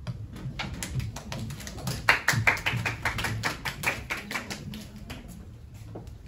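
A small group of people applauding: scattered hand claps that thicken about two seconds in and thin out again near the end.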